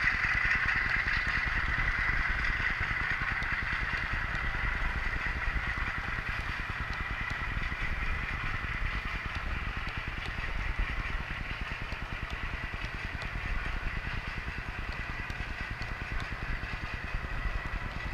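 Model train of coaches hauled by two Class 50 diesel locomotive models, rolling slowly past on model track. A steady mechanical hum sits over a clatter of wheels on the rails, and both slowly fade as the train draws away.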